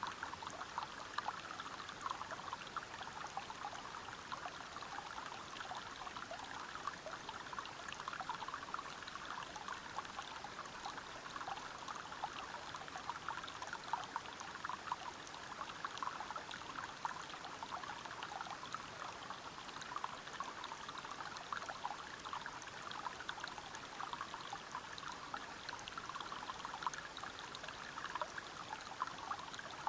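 Water running over rocks in a forest stream below a small waterfall: a steady rush with many small splashes and trickles.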